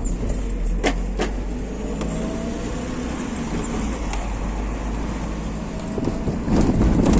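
Steady low rumble of an airliner heard from inside the cabin, with a few sharp rattles, a faint slowly rising high whine, and the noise growing louder about six and a half seconds in.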